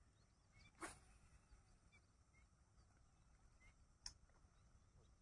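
Near silence in open air, with faint short bird chirps now and then and two brief sharp sounds, one about a second in and one about four seconds in.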